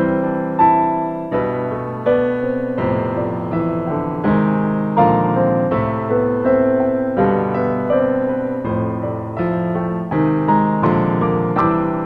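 Solo piano music: a gentle piece of chords and melody notes struck about every three-quarters of a second, each note ringing and decaying.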